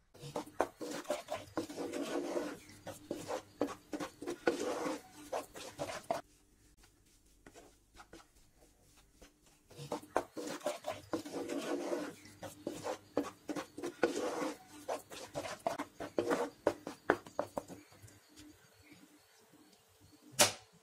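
Wooden spatula scraping and stirring a gram flour and ghee mixture in a nonstick frying pan, in quick repeated strokes: two bouts of brisk stirring with a quieter stretch between them and softer stirring afterwards. A single sharp click near the end.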